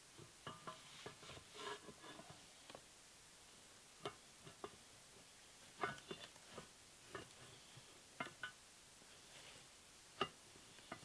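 Scattered light clicks and metallic knocks of small steel parts, a bolt, nut and handle, being handled and fitted against a cast-iron jointer base, some with a short ring. The sharpest knock comes about ten seconds in.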